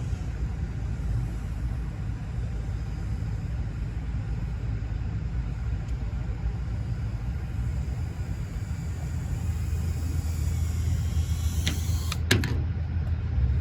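Steady low rumble, with the high whine of a micro FPV drone's motors (BetaFPV Meteor75 Pro) rising in pitch about ten seconds in, then a sharp knock near the end.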